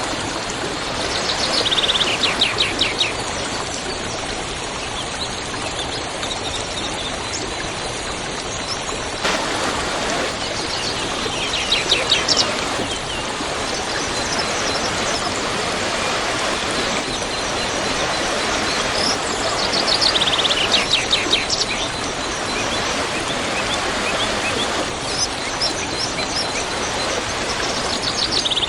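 Waterfall rushing steadily, with a songbird repeating a short, rapid, descending trilled phrase about every eight to ten seconds.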